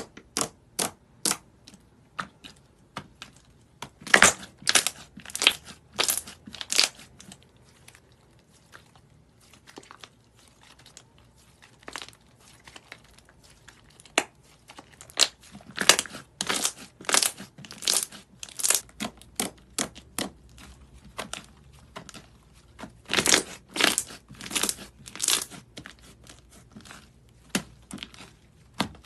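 Thick slime being pressed, stretched and folded by hand, giving sharp crackling pops and clicks in quick runs of several a second, with quieter stretches between.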